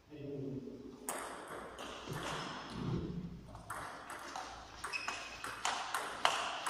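Table tennis rally: the ball clicks sharply off rackets and the table about once or twice a second from about a second in, each click echoing in a large hall.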